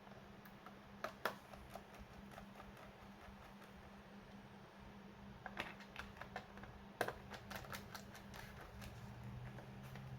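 Faint scattered plastic clicks and taps from a laptop being handled and taken apart by hand, in small clusters about a second in and again from about five and a half to eight seconds in.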